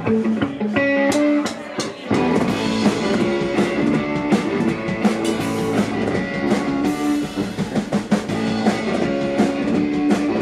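Rock band playing: a guitar riff over drums, the sound filling out with a heavier low end about two seconds in.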